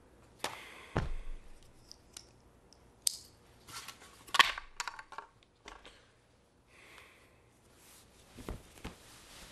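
Scattered clicks, knocks and rustles of a plastic bicycle helmet being taken off and handled, along with clothing rustling. The loudest sharp snap comes a little over four seconds in.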